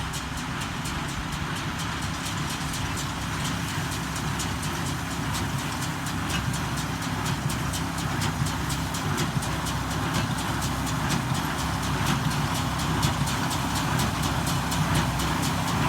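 Allis-Chalmers D17 diesel tractor's six-cylinder engine running steadily under load, pulling a John Deere 336 hay baler, with a fast, even mechanical clatter over the engine hum. It grows gradually louder.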